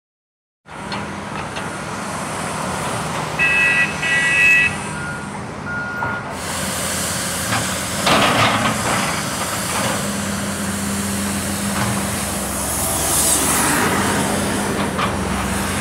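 Road traffic at a construction zone: a heavy truck engine running with a steady low hum, and vehicles passing from about six seconds in. A quick series of short high beeps comes a few seconds in.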